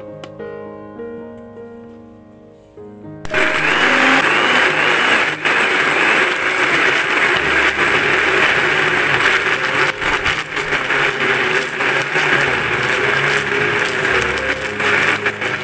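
Soft background music, then about three seconds in an electric blender switches on and runs loudly and steadily, grinding raw tuna chunks into a paste.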